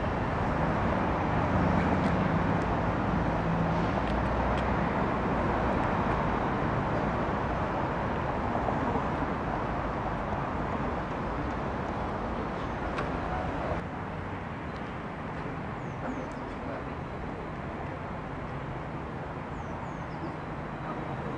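Steady outdoor rushing noise, louder for the first two-thirds and dropping about fourteen seconds in, with a few faint high chirps in the later part.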